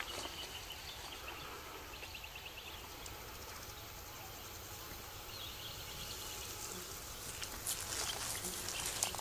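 Outdoor bush ambience with short, rapid chirping trills from wildlife a few times, then a dry crackling rustle that grows louder from about eight seconds in.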